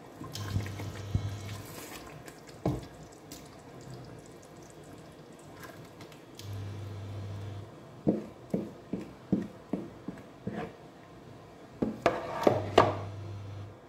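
A spoon stirring in a steel pot of fried tomato, then blended onion paste poured from a plastic bowl into the pot with wet, dripping sounds. A run of short knocks follows, with louder knocks near the end as the bowl and spoon strike the pot. A low hum comes and goes three times.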